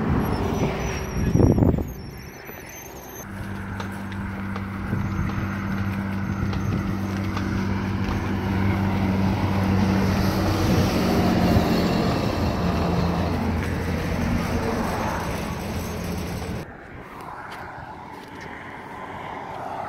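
Loaded fishing carts rolling over a concrete bridge deck, a steady rattling rumble with a low hum, after a single loud knock about a second and a half in.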